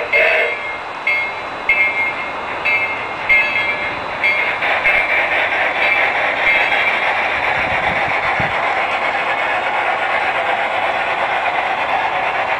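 Large-scale model locomotive running through a set of hand-built switches: a steady running hum, with clicks in the first few seconds as its wheels cross the switch points and frogs.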